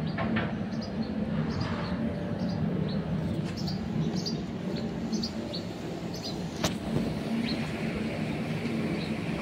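Steady low machinery hum in a ship dry dock, with scattered short high chirps over it and one sharp click about two-thirds of the way through.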